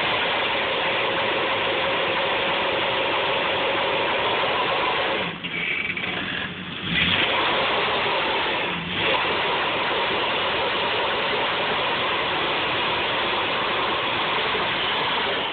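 Ford Crown Victoria's V8 held at high revs in a burnout, the rear tyre spinning on the asphalt, a loud steady noise that dips briefly a few times between about five and nine seconds in.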